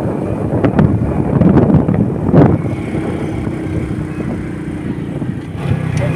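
Wind buffeting the microphone of a moving motorbike in uneven gusts, with the bike's engine running steadily underneath.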